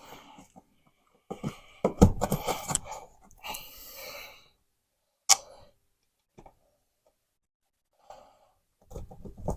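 Irregular scraping and knocking as drywall is worked around an old telephone wall box to cut and pry it free, with a single sharp click about five seconds in.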